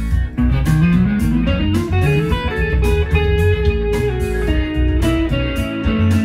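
Fender electric guitar playing a free improvised single-note lead in the Mixolydian mode, climbing in a run of rising notes over the first two seconds and then holding and bending notes. A steady beat and a low bass part sound underneath.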